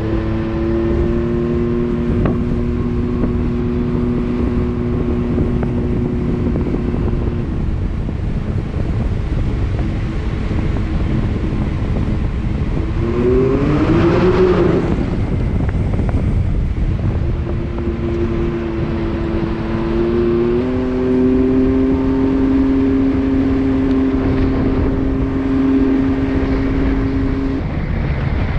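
Can-Am Maverick X3 Max UTV's turbocharged three-cylinder engine running at a steady cruise over a low rumble. About halfway through it revs up and drops back down, and about two-thirds in the pitch steps up to a new steady drone.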